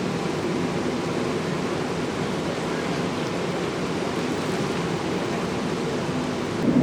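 Steady rushing of floodwater pouring down the street from a broken water main, mixed with traffic noise. A louder vehicle sound swells in just at the end.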